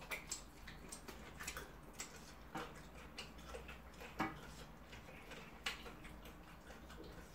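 Faint, irregular clicks and smacks of mouths chewing and eating chicken and rice by hand, a few seconds apart.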